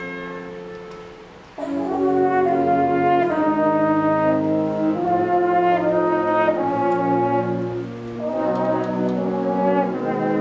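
High-school wind band playing: a soft held chord fades away, then about a second and a half in the full band comes in loudly, with brass holding sustained chords.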